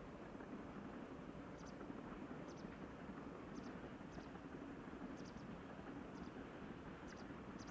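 Faint outdoor ambience: a steady low distant rumble, with short high chirps in pairs or threes repeating about once a second.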